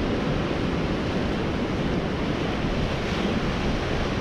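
Steady rush of ocean surf at the shoreline, with wind buffeting the microphone.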